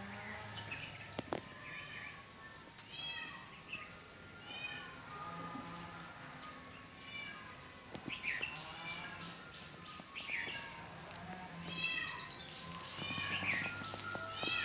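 Birds calling outdoors: many short, arched chirps repeated throughout, some overlapping, over a faint low hum.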